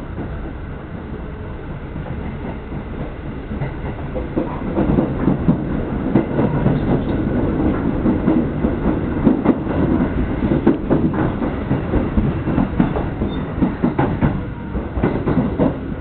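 Ride noise inside a moving electric train: a steady rumble of wheels and running gear that grows louder about four seconds in. From the middle on come repeated sharp clacks as the wheels cross rail joints and points.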